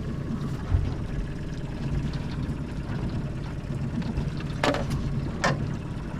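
Fishing boat's engine running steadily at low speed, a low rumble. Two short sharp knocks come near the end, under a second apart.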